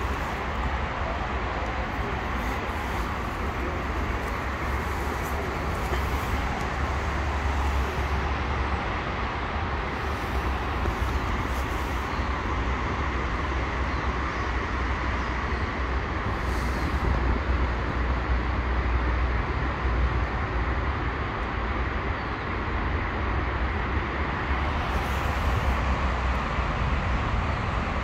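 Steady outdoor street noise with a low rumble, like distant traffic.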